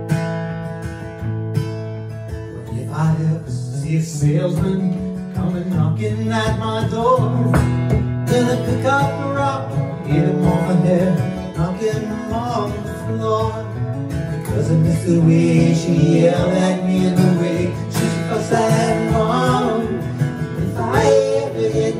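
Acoustic guitar played with a man singing along; the singing comes in about three seconds in and pauses briefly near the middle.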